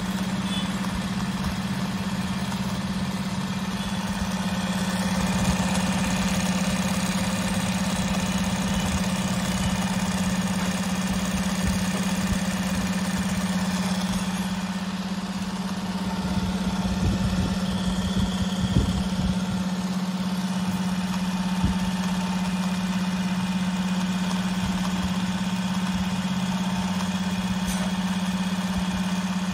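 A JAGKING 5330D direct-drive industrial sewing machine runs steadily, stitching through a thick black leather-like strip, with an even hum.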